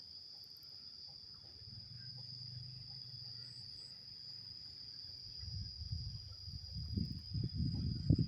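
Insects chirring with a steady high buzz, while the low rumble of an approaching Taksaka passenger train grows louder from about halfway in, with wheel clatter and knocks building near the end.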